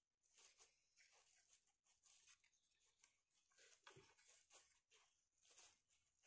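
Near silence with faint, scattered small clicks and rustles: hands working the parts of a bamboo spring trap, pulling a line or piece through while rigging it.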